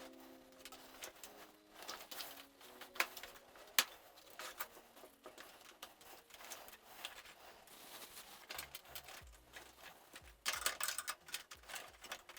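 Quiet, scattered clicks and taps of PC parts being handled while case fans are fitted into a computer case, with one sharp click a little under four seconds in and a quick run of clicks near the end.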